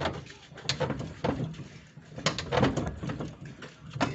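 Irregular sharp metal knocks and clicks, about half a dozen, the loudest about two and four seconds in, from tools working on a disc plough's steel frame as it is taken apart.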